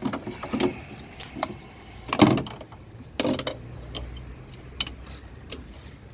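A series of separate knocks and clicks from handling gear around a car, about half a dozen in all, the loudest a little over two seconds in.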